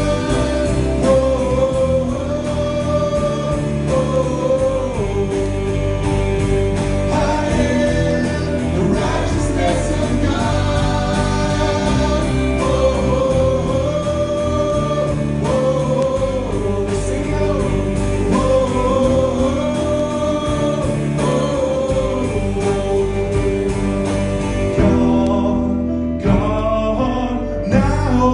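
Gospel song with singing voices over instrumental accompaniment.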